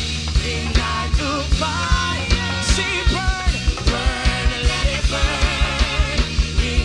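Live worship band playing, with a singing voice over bass and a steady kick drum. About halfway through the kick drum quickens to about four beats a second.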